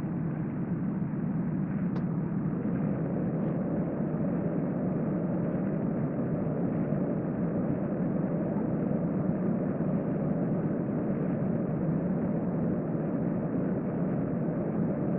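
Steady low droning background noise with no breaks or rhythm, and a faint click about two seconds in.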